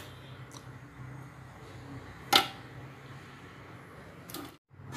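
Woven idiyappam trays being stacked in a steel steamer pot: one sharp knock about halfway through and a softer one near the end, over a low steady hum.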